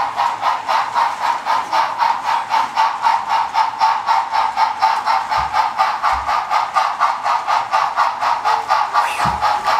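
Bachmann Spectrum 4-6-0 model steam locomotive's factory-installed Tsunami sound decoder playing a steady, fast steam-exhaust chuff, about five beats a second, through the model's small speaker.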